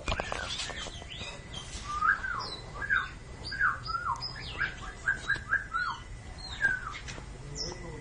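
Caged oriental magpie-robin (kacer) singing: a quick run of short whistled notes, each sliding downward, several a second, with higher chips mixed in.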